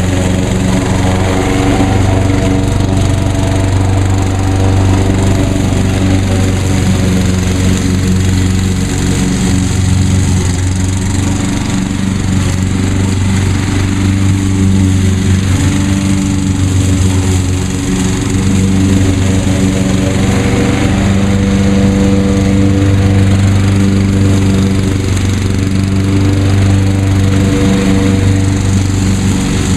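Craftsman walk-behind lawn mower's small single-cylinder engine running steadily under load while cutting grass.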